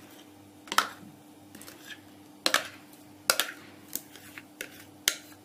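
Chocolate cake batter being scraped from a glass mixing bowl into a springform tin: a spatula clicks and knocks against the glass about five times, at irregular spacing, over a faint steady hum.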